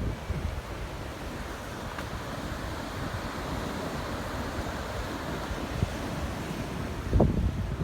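Ocean surf washing steadily, mixed with wind noise on the microphone. A short, louder low burst comes near the end.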